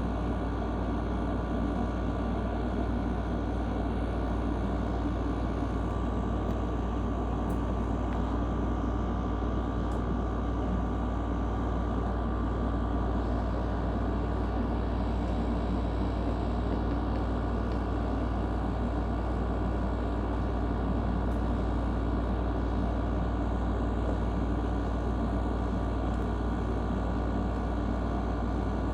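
Steady low rumble of a vehicle, constant in level throughout with no sudden sounds.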